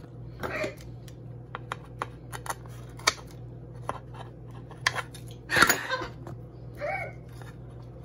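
Kitchen scissors snipping tortilla into pieces on a plastic cutting board: a run of short, sharp snips and clicks. A loud parrot squawk comes a little past halfway, and a shorter call near the end.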